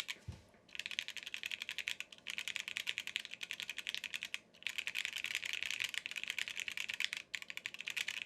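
Fast typing on a Cannonkeys Savage 65 mechanical keyboard with lubed Gateron CJ linear switches, an FR4 plate and PBT keycaps. It comes in several bursts of rapid keystrokes broken by short pauses, with one dull low thump just after the start.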